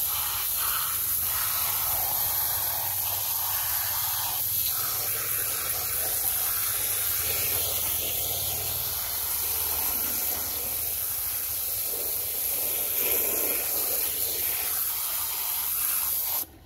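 A jet of water from a spray nozzle hissing steadily as it washes mud off plastic toy figures on artificial turf; it stops abruptly at the very end.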